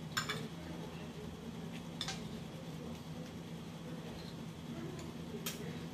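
Metal fork clinking and scraping in a foil pan of food: three short sharp clicks a couple of seconds apart, over a low steady hum.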